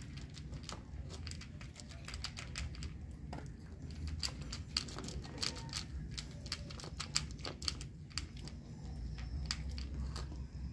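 A dog eating dry kibble from a plastic bowl: a quick, irregular run of crunches and clicks, over a steady low rumble.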